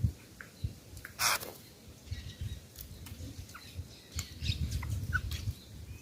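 Birds at a feeding spot giving short, scattered chirps and calls, mixed with fowl clucking. A brief rustling burst comes about a second in, and a low rumble sits under the second half.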